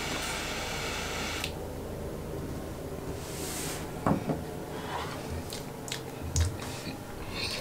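Butane torch lighter's jet flame hissing steadily as a cigar is lit, cutting off about a second and a half in. Then come soft lip puffs and a breathy exhale as the cigar is drawn on.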